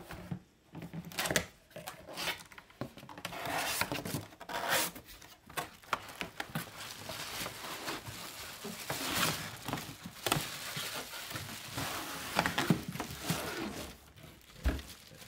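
Cardboard box and thin plastic wrapping rustling and crinkling as a diaper pail in a plastic bag is pulled out of its box, with irregular scraping and a few sharper knocks of cardboard.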